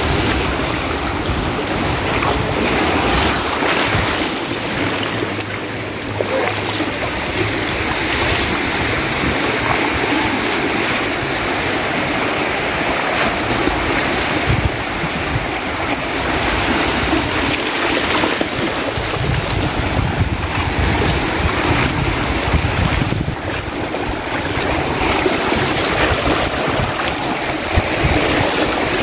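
Small sea waves washing and swirling over rocks at the water's edge, a steady rushing surf. Wind buffets the microphone with an uneven low rumble.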